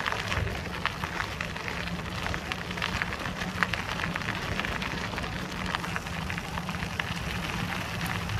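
Bicycle tyres rolling over a forest track: a steady crunching with many small crackles and ticks over a constant low rumble.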